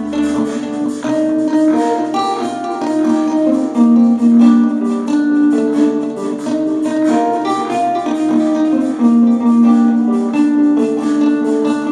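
Instrumental acoustic guitar music: a plucked melody played over ringing chords.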